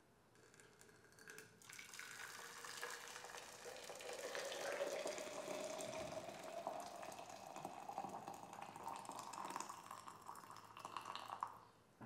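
Hot water poured from a kettle into a glass pitcher: a steady splashing stream whose tone rises as the pitcher fills. It starts about a second and a half in and stops just before the end.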